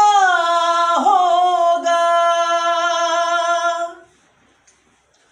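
A man singing unaccompanied, holding long drawn-out notes that slide slowly down in pitch, with a fresh note taken about a second in. The voice breaks off about four seconds in.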